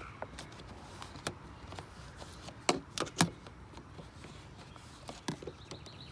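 A scattering of light knocks and clicks, the loudest a quick run of three about halfway through.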